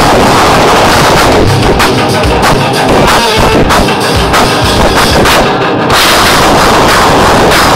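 Live band with a drum kit played hard, recorded so loud on a phone that the sound is overloaded and distorted. About a second in the wash breaks into separate hard drum hits, and the full band sound returns about six seconds in.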